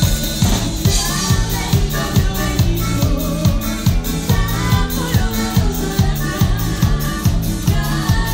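Live band playing a song: a drum kit keeps a steady beat of about two a second under electric guitars, and the drummer sings lead.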